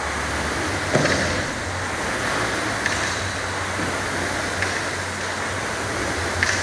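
Air rowing machine's fan flywheel whooshing steadily under hard rowing, with a short knock at each stroke about every two seconds.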